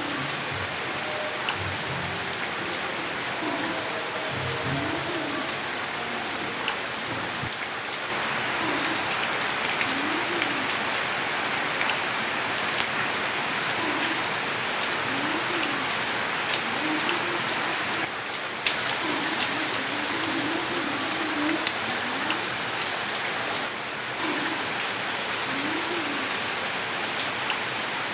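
Steady heavy rain pouring down, with scattered sharp drop ticks over a dense hiss. It grows louder about eight seconds in and dips briefly twice near the end.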